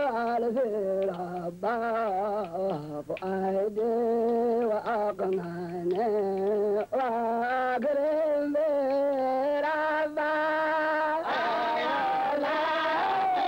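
A single voice singing a chant, its melody wavering and broken by short pauses between phrases. About eleven seconds in, more voices join and the sound thickens.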